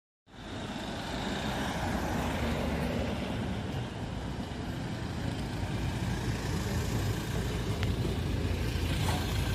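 A car engine running as the car rolls slowly up and comes to a stop, a steady low rumble.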